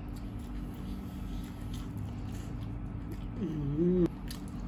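Quiet eating sounds with faint mouth clicks over a steady low hum. About three and a half seconds in there is a short hummed 'mm' from the eater, dipping and rising in pitch, cut off by a sharp click.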